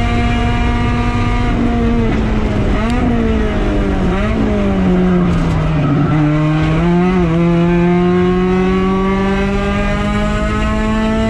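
Mazda Miata race car's four-cylinder engine at high revs, then falling in pitch as it slows, with short upward revs about three, four and seven seconds in, and climbing steadily again as it accelerates.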